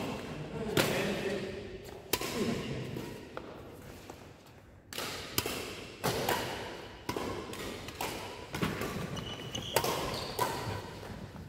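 Badminton rackets striking a shuttlecock: sharp cracks at irregular intervals of about a second, each ringing on in the reverberant sports hall.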